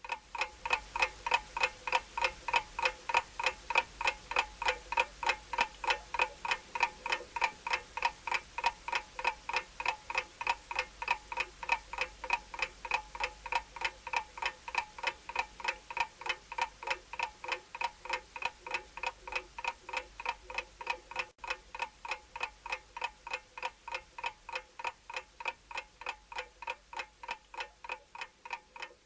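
Stopwatch ticking sound effect: a steady, evenly spaced clock-like tick about three times a second, each tick with a short ringing tone.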